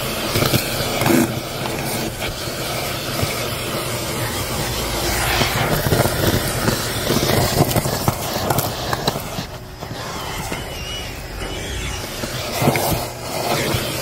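Bissell Helix vacuum running with its crevice tool, sucking wood chips and paper scraps off car carpet: a steady motor noise with the crunch and rattle of debris going up the hose. The suction sound dips briefly about two-thirds of the way in.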